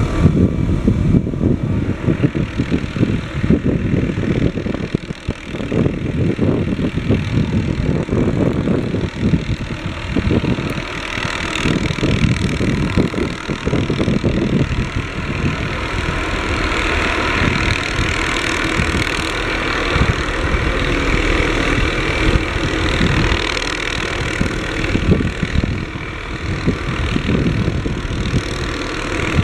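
MD 520N NOTAR helicopter hovering overhead: its single turbine engine and main rotor running steadily, with no tail rotor. The rushing of the rotor wash grows stronger about eleven seconds in.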